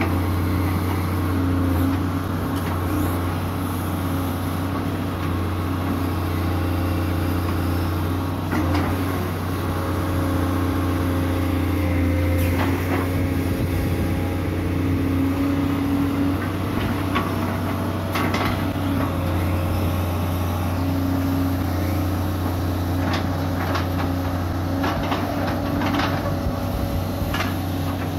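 Hitachi UH045-5 hydraulic excavator's diesel engine running steadily while the arm and bucket dig mud out of a ditch, with scattered knocks and clanks from the working bucket and arm, several close together near the end.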